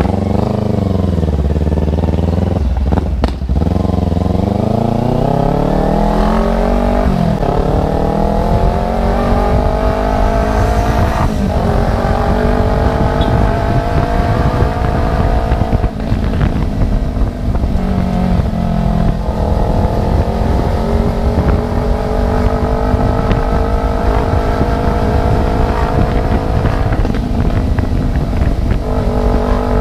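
Kawasaki Ninja 250 FI parallel-twin engine ridden with no exhaust fitted, a loud, raw open-header note. It accelerates through the gears, with the pitch rising and then dropping at each shift about 3, 7 and 11 seconds in. It then cruises at a steadier, gently varying pitch.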